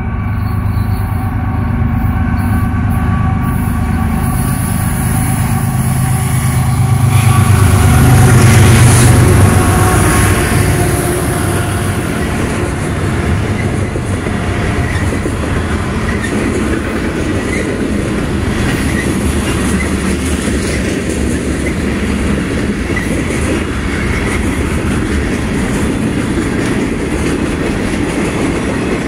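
Diesel freight locomotive approaching and passing close by, its engine drone loudest about eight to ten seconds in. Then a string of covered hoppers and gondolas rolls past with steady wheel-and-rail clatter and faint wheel squeal.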